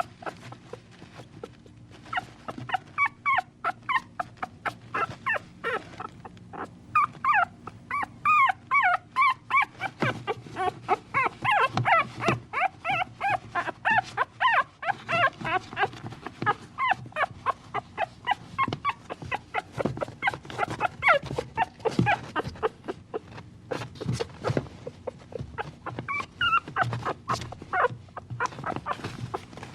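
A puppy whining and whimpering: many short, high-pitched cries in quick runs, a few of them close together each second.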